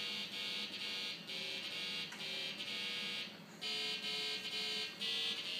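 Buzzy electronic tone sounding in a string of held notes that change pitch, like a buzzer playing a simple tune, with short breaks between the notes.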